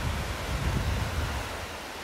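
Steady rushing of a small two-tier waterfall, with wind buffeting the microphone in low rumbles that ease off near the end.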